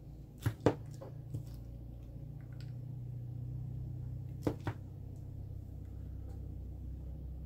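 Sharp clicks and knocks from handling a spinning reel and its spools: a few clicks in the first second and a half, then a pair about four and a half seconds in, over a steady low hum.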